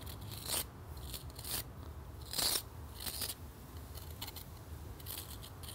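Small steel pointing trowel scraping fresh mortar into a brick joint in a series of short strokes, the loudest about two and a half seconds in.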